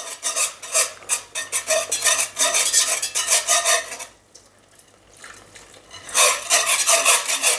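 Metal wire whisk scratching and rattling against the inside of a cast-iron Dutch oven, stirring a thick roux sauce in quick strokes. The scraping stops for about two seconds a little past halfway, then starts again.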